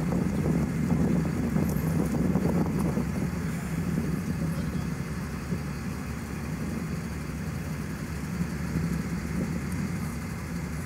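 Steady low rumble of road traffic and idling vehicle engines, a little louder in the first few seconds.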